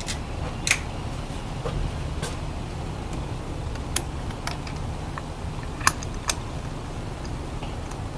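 Scion tC's 2AZ-FE four-cylinder engine idling steadily, with a number of sharp clicks and taps over it.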